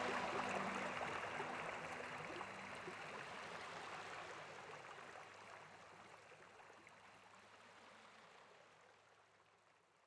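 Ocean surf, small waves breaking and washing up onto a sandy beach, fading out steadily to near silence. The last notes of soft background music die away in the first couple of seconds.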